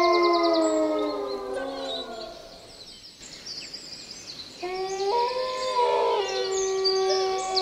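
Several dogs howling together in long held notes, at more than one pitch. The notes slide downward and die away about two and a half seconds in, then start again a couple of seconds later, with short high calls over the top.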